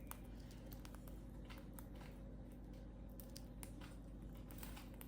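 Faint, irregular small clicks and ticks over a steady low room hum.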